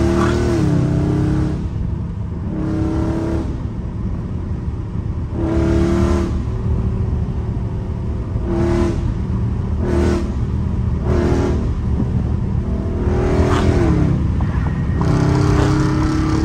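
Catless Dodge Charger Scat Pack's 6.4-litre HEMI V8 exhaust, heard from inside the cabin, very loud. The engine swells and falls back in about eight revving surges as the car accelerates and shifts.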